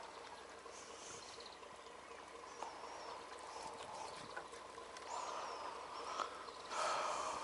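Faint lakeside ambience with a few thin bird calls, one a short descending whistle about five seconds in, and a brief rustling noise near the end.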